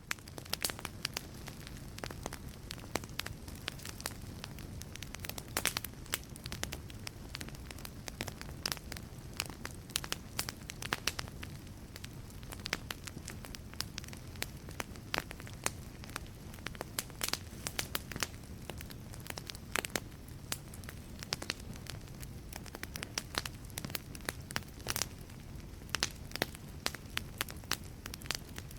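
Wood fire burning in a fireplace, crackling with frequent irregular sharp pops over a low steady noise of the flames.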